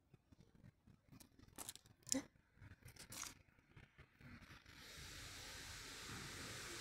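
Faint close rustling and scratchy brushing, a few louder scratches near the middle; about five seconds in a steady hiss sets in.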